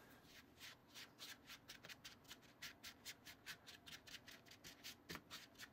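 Plastic mixing spoon scraping and pressing crumbly cookie-mix dough in a small plastic bowl. The strokes are quick, short and faint, about five a second.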